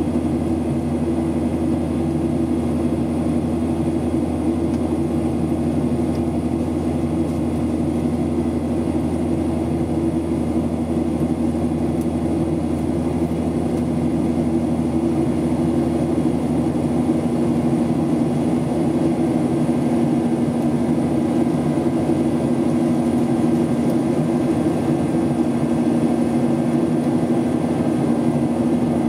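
Steady, unchanging drone of a jet airliner's engines and air noise inside the cabin during the climb after takeoff, with a constant low hum.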